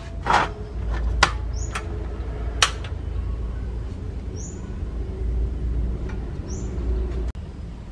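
Portable gas stove being lit: a few sharp igniter clicks in the first three seconds, over a steady low rumble that cuts off suddenly near the end. A bird chirps three short falling notes.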